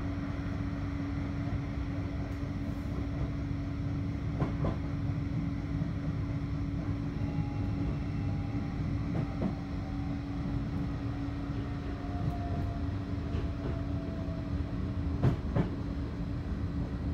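Running noise inside a Bombardier Flexity 2 tram in motion: a steady low rumble under a constant hum, with a few short knocks. A faint whine slides slowly down in pitch midway through.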